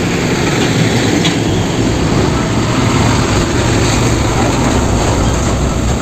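Truck on the road, a tanker truck: a steady rush of engine and road noise with no clear change.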